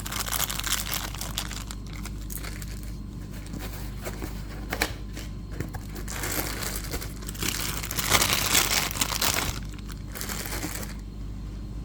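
Packaging crinkling and rustling in bursts as a boxed figure's pieces are unwrapped and handled. It is loudest about eight seconds in and dies down near the end.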